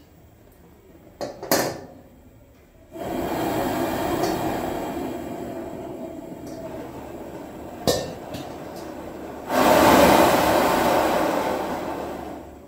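Single-burner chifa stove's high-pressure gas wok burner roaring: the roar starts suddenly about three seconds in and eases off slowly, then surges louder again in the last few seconds before fading as the flame is turned down. A steel wok clinks against the burner just before the roar starts and once more in the middle.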